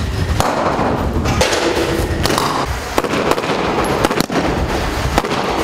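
Rifle fire during an urban combat drill: many sharp, irregular shots, some in quick succession, overlapping one another.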